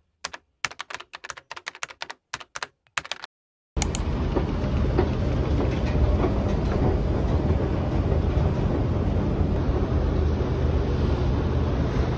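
Quick, irregular keyboard-like clicks, like typing, for the first three and a half seconds or so. Then a sudden cut to a loud, steady rumble of background noise with a low hum, like a ride in a vehicle or train.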